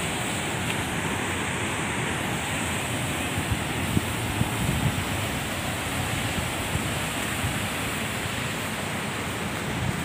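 Steady rushing of water pouring down a concrete dam spillway into the channel below, an even noise that holds at one level throughout.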